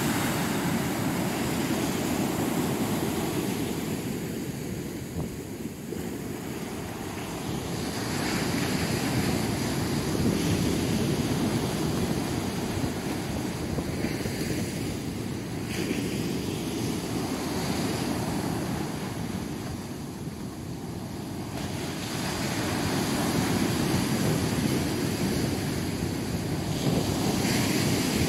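Sea surf breaking and washing onto a beach: a continuous rush of waves that swells and ebbs over several seconds, with brief brighter hissing as individual waves break.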